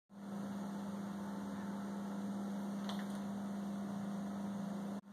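A steady low hum with a faint hiss behind it, and a faint click about three seconds in.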